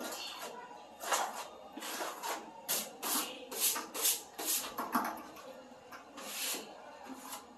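Trowel scraping skim-coat filler across a ceiling: a series of short rasping strokes, about two a second in the middle, then a last one near the end.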